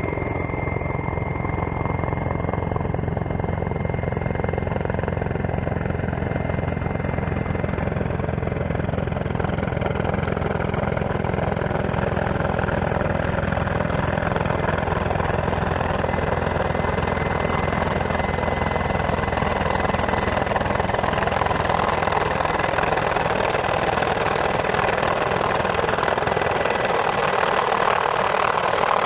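Mi-35M (Hind E) twin-turboshaft attack helicopter flying in, with the rapid thudding of its main rotor and a steady engine whine, growing slightly louder as it approaches.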